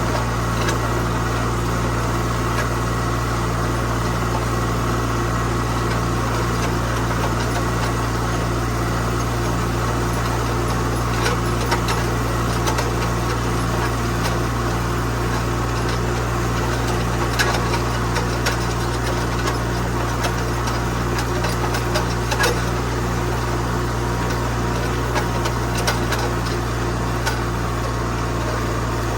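Tractor engine running steadily, with a fast, even low pulse and occasional light clicks and rattles.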